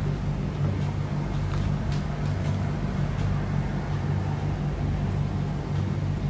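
A steady low hum made of several held tones, with an even hiss over it: background machine noise running without change.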